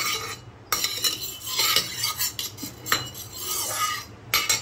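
Perforated steel skimmer scraping and clinking against the inside of a kadai, stirring a thin layer of oil in short, irregular strokes.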